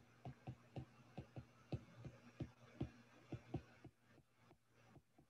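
Faint, irregular clicks of a stylus tip tapping on a tablet screen during handwriting, a few a second, dying away about four seconds in, over a faint low hum.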